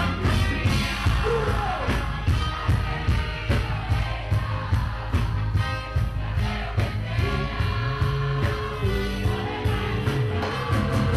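Live merengue band playing at full volume with a steady dance beat, strong bass and a male lead singer.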